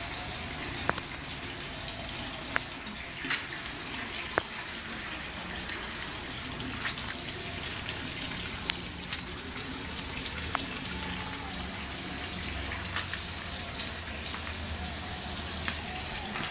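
Steady rush of running water, with a few sharp clicks scattered through.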